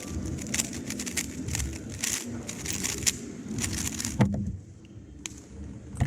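A 3x3 Rubik's Cube being turned fast: a rapid, irregular run of plastic clicks that stops about four seconds in with a louder knock, followed by a few scattered clicks.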